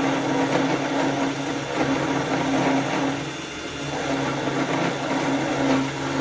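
Cheap 775 DC motor spindle running a 10 mm end mill, cutting a slot in metal: a steady motor hum under a rough, uneven cutting noise that eases slightly a couple of times as the feed changes.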